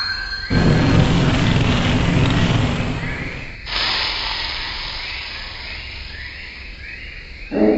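A high steady whistle tone fades out, then a loud rumbling rattle starts abruptly about half a second in, like a train going by. About three and a half seconds in it cuts suddenly to a quieter hiss that slowly dies away.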